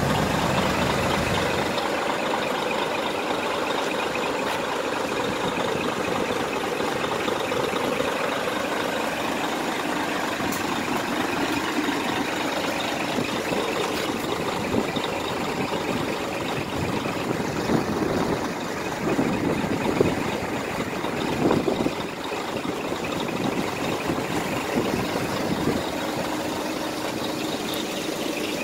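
Scania R420 tractor unit's 12-litre inline-six diesel engine idling steadily. A few brief, louder irregular noises come about two-thirds of the way through.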